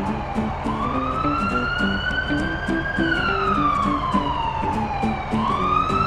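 Emergency siren in a slow wail: it falls in pitch, climbs for about two seconds, falls for about two and a half seconds, then sweeps back up near the end. Light background music with a steady ticking beat plays underneath.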